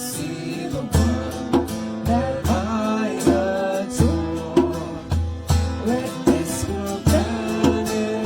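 A song with a voice singing over guitar, bass and a steady beat.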